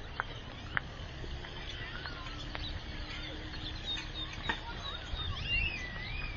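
Birds chirping and calling: many short rising and falling whistled notes, with a few sharp clicks and a low rumble underneath.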